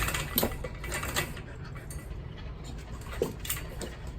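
Dogs moving about: scattered light clicks and taps, with one brief short dog noise about three seconds in.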